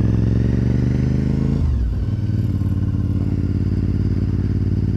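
2004 Honda RC51 sportbike's 90-degree V-twin engine running while riding. About a second and a half in, the engine note falls sharply as the revs drop, then holds steady at lower revs.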